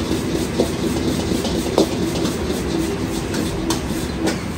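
Gas wok burner running with a steady rushing noise while fried rice is stir-fried and tossed in the wok, with a few sharp metal clinks of the ladle against the wok.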